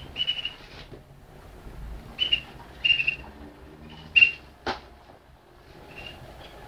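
Malinois (Waterslager) canary singing in short bursts of high, level-pitched song, one every second or so, with a sharp knock about four and a half seconds in.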